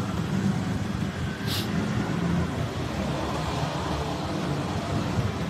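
Steady low vehicle rumble with no clear engine note, with a short hiss about a second and a half in.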